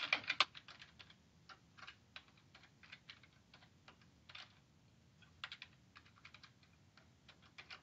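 Faint computer keyboard typing: irregular key clicks, with a quick run of keystrokes at the start and another cluster about five and a half seconds in.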